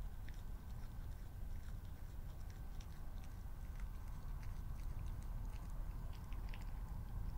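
Red fox chewing food, many small scattered clicks and crunches, over a steady low rumble and a thin steady high tone.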